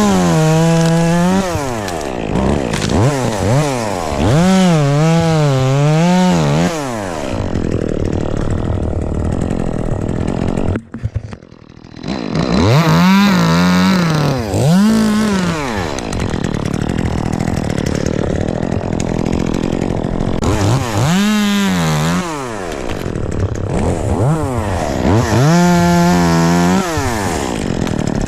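Two-stroke chainsaw revving up and down several times while cutting ash wood. The engine sound drops away briefly about eleven seconds in.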